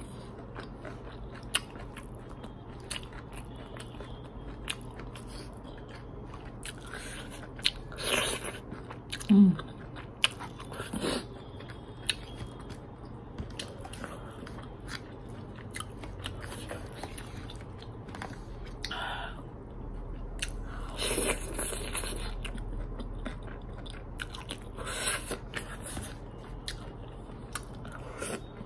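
Close-up eating sounds of a person chewing and biting hakka noodles and chili chicken, with light clicks and scrapes of a plastic fork and spoon against a plastic tray. A few louder bursts stand out now and then.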